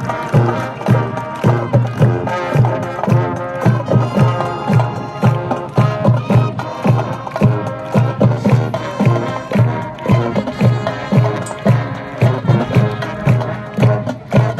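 High school marching band playing: brass and woodwinds holding sustained chords over a steady bass-drum beat of about two to three strikes a second.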